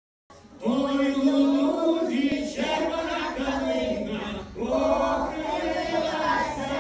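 A group of voices singing together in long held notes, in phrases of about two seconds, starting a moment in.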